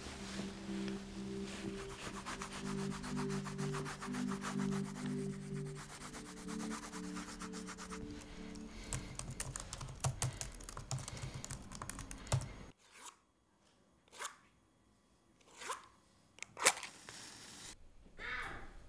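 Soft music score with long held low notes over coloured pencils scratching on paper. This gives way to laptop keyboard typing, which thins out to a few separate sharp key taps; the loudest tap comes about three-quarters of the way in.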